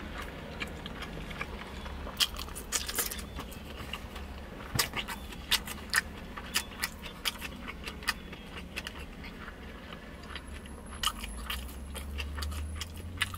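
A person eating and chewing food, with many irregular small clicks and clinks scattered through.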